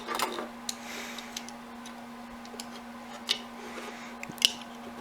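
Scattered small clicks and taps of a laptop hard drive's parts being handled and worked by hand, with two sharper ticks, one about three seconds in and one near four and a half seconds, over a steady low hum.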